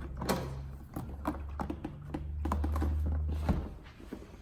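Snowmobile fuel tank being lifted off the chassis: several light knocks and bumps as it is handled, over a low hum that swells for about a second and a half in the second half.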